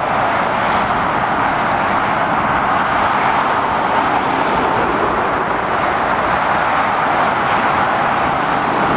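Steady motorway traffic noise: tyres of cars and heavy lorries on the road surface, an even rushing sound without any single engine standing out.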